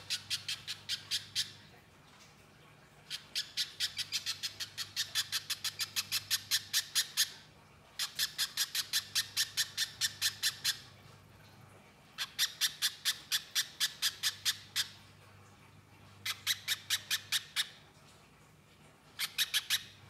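Little spiderhunter (pijantung pisang) calling in rapid trains of sharp, high notes, about five a second, in bouts of two to four seconds separated by short pauses.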